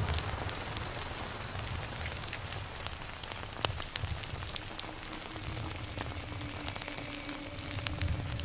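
Steady hissing and crackling noise with scattered sharp clicks, one louder about three and a half seconds in, over an uneven low rumble; faint held tones come in during the second half.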